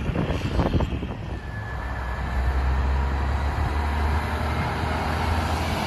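Heavy diesel truck engine running steadily as a loaded scrap-metal truck approaches on the road, growing slightly louder after about two seconds. Wind buffets the microphone in the first second or so.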